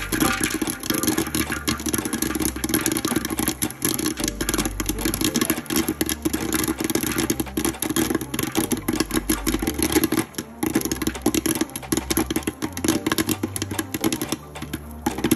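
Electric popcorn maker running, with a steady motor hum under dense, rapid crackling of kernels popping in hot oil: the batch is in full pop.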